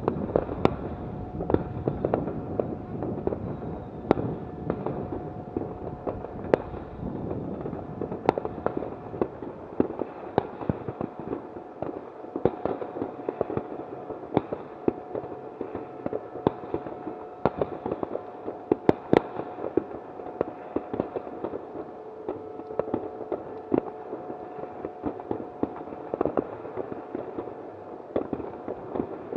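Fireworks and firecrackers going off in a steady stream of pops and bangs, with a few sharper, louder cracks among them, the loudest about two-thirds of the way through.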